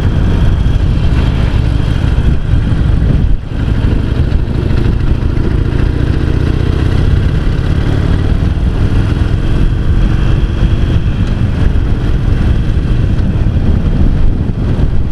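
Harley-Davidson XL883C Sportster's 883 cc air-cooled Evolution V-twin running under way on its standard exhaust pipes, a steady low exhaust note that dips briefly about three seconds in.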